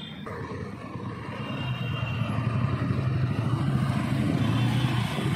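Motorcycle engine pulling away in slow city traffic: the engine note grows louder over the first couple of seconds, then runs steadily, with the surrounding traffic noise.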